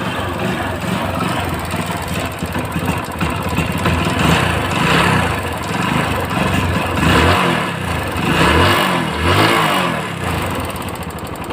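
Hero Splendor Plus BS6 single-cylinder four-stroke engine running and revved up and down several times, with a tick-tick knock that the mechanic suspects is the piston striking a valve rather than a worn piston pin or tappet.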